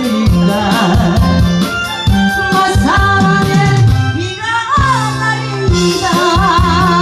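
A woman singing into a microphone over a recorded backing track with a steady drum beat and bass.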